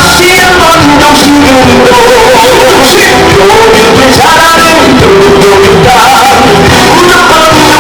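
Campaign song playing loudly: a sung vocal line over a full band backing.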